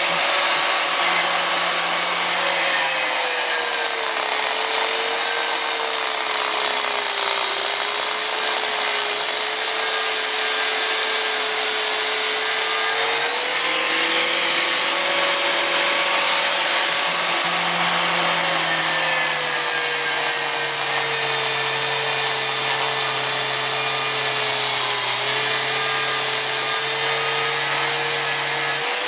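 Angle grinder running continuously with its disc cutting into the metal locking collar on a car driveshaft's intermediate shaft. Its whine sags and recovers in pitch several times as the cut loads it. The collar is being cut only partway, so that it loosens without the shaft being cut.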